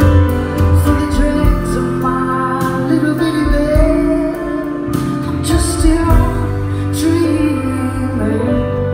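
Live band music with a woman singing into a microphone, amplified through a concert hall's sound system and recorded from within the crowd.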